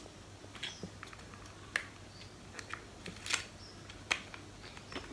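Scattered light clicks and taps of plastic cosmetic packaging being handled, an eyebrow product with its brush. About a dozen irregular clicks, the sharpest near the middle and toward the end.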